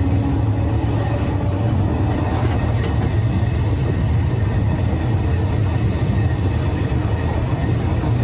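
Vintage Vienna Type A tram running along its track: a steady low rumble from the wheels on the rails and the running gear.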